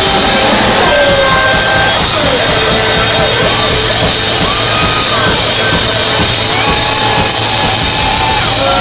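Loud rock music, steady and full, with bending pitched lines of guitar and voice.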